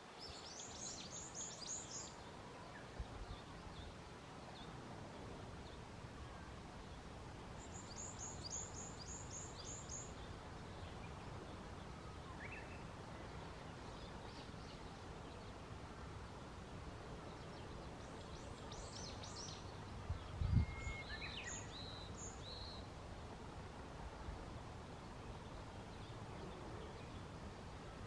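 Small songbirds calling in several short bursts of quick, very high chirps over a steady faint outdoor hiss. A dull thump comes a little past the middle and is the loudest sound.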